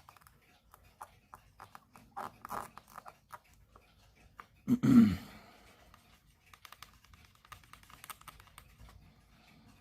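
Faint, irregular scratching and light clicking of small-scale work cleaning dirt off the inside of a wristwatch crystal. A short vocal sound comes about halfway through.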